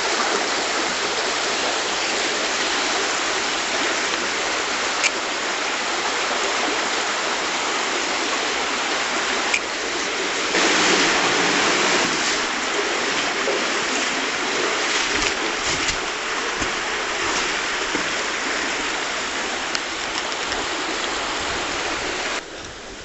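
Small tributary stream rushing steadily, running deeper and wilder than in summer. The rush swells for a couple of seconds about halfway through and drops off just before the end.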